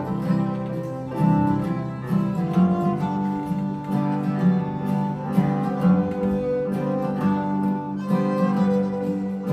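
Old-time fiddle tune played on fiddle with acoustic guitar accompaniment, the guitar's bass notes strong beneath the fiddle melody.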